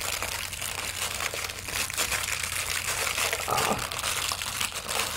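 Plastic packaging crinkling continuously as it is handled, with many fine crackles.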